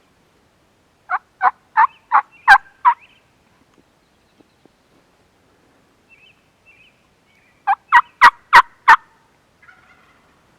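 Two series of turkey yelps, each about six evenly spaced, sharp notes at roughly three a second, the second series coming about five seconds after the first.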